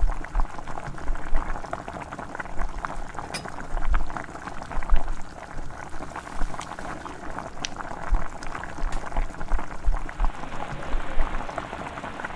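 A thick coconut-milk stew with shrimp, string beans and squash bubbling at a steady simmer in a pan, with a constant crackle of small popping bubbles.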